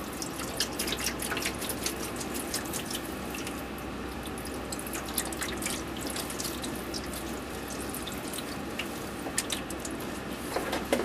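Liquid dripping and splashing in a sink with a steady trickle beneath, as a large wet-collodion glass plate goes through the fixing stage. Many quick drips fall throughout, most thickly in the first few seconds and again near the end.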